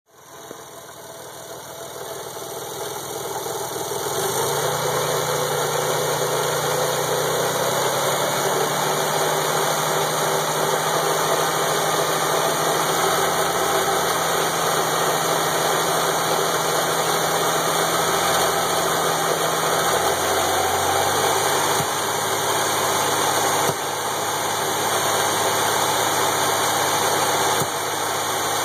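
Nissan 300ZX twin turbo's V6 engine idling steadily, its note shifting a couple of times, while it runs with the radiator open for a coolant-funnel test for a leaking head gasket.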